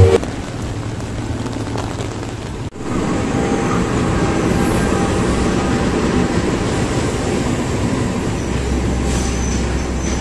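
Steady background noise, then from a sudden cut about three seconds in, a diesel locomotive and its passenger coaches passing close along a station platform: a steady rumble of engine and wheels on rail, with a deeper hum coming in near the end.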